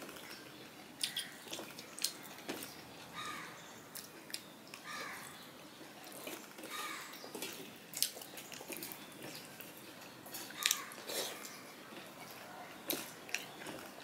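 Eating by hand: fingers mixing rice and fish curry on a steel plate, with wet mouth smacks and chewing, a run of soft clicks and squelches. A few short calls sound in the background about three, five and seven seconds in.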